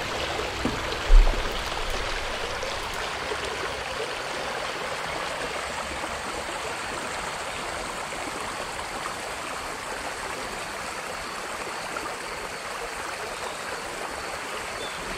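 Shallow stream rippling over a stony bed: a steady rush of running water. There is a brief low thump about a second in.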